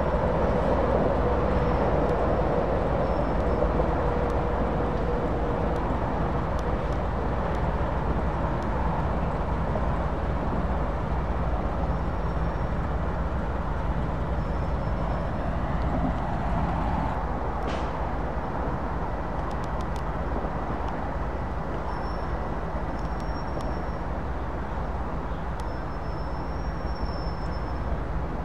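British Rail Class 08 shunter's six-cylinder English Electric diesel engine running steadily with a deep rumble. A whine over the engine fades out about six seconds in.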